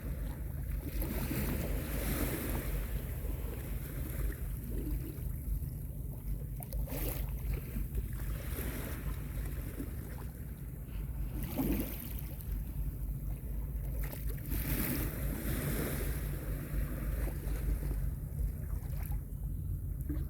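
Small sea waves washing in and receding, one wash every few seconds, over a steady low rumble of wind on the microphone.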